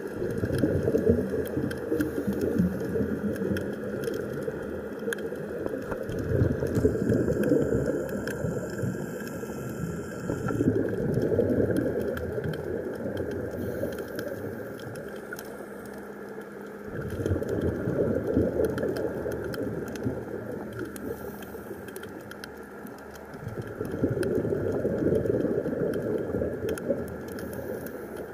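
Underwater sound from a scuba diver's breathing: exhaled bubbles rushing and gurgling in surges every five to seven seconds, over a constant faint crackle.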